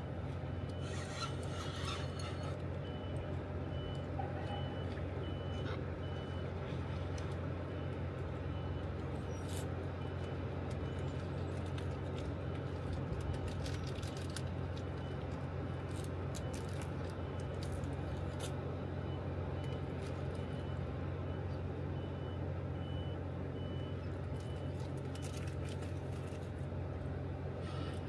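Steady low rumble of river water running out below a dam, with a faint high beeping about twice a second, of the kind a reversing alarm on machinery makes.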